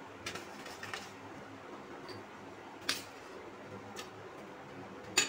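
A steel spoon clinking a few times against the dishes as dry, crumbly panjiri is spooned from a steel plate into a glass bowl. Three sharp clinks stand out: one just after the start, one about three seconds in, and one near the end, with faint scraping between.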